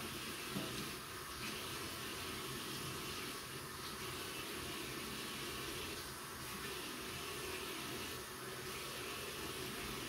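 Water running steadily from a tap into a bathroom washbasin while hands scrub the bowl, the splashing swelling every two seconds or so. There is a small knock about half a second in.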